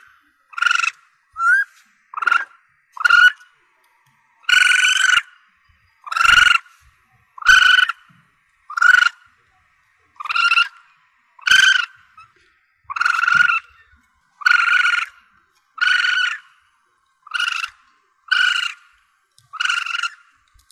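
Young Asian palm civet (musang pandan) calling over and over: short, steady, high-pitched cries about one a second, most about half a second long, one near the middle running about a second.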